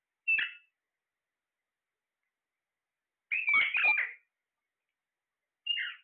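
Alexandrine parakeets calling: one short call, then a longer doubled call about three and a half seconds in, then another short call near the end.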